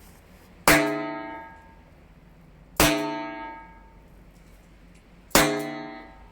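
Three small firecrackers banging inside a pipe, about two seconds apart; each sharp bang sets the pipe ringing with a resonant, hollow tone that dies away over a second or so.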